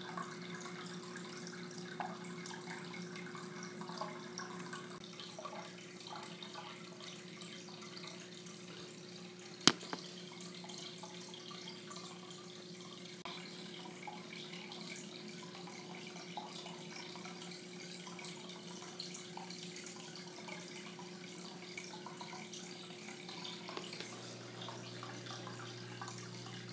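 Aquarium filter running: a steady trickle and splash of water over a low, even hum. A single sharp click about ten seconds in.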